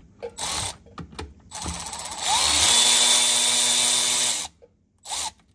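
Milwaukee M12 cordless ratchet run in a couple of short bursts, then held for about two seconds with its motor spinning up in pitch, and given one last brief blip near the end. It is backing off the T-bolt hose clamp on a turbo charge tube until the clamp comes loose.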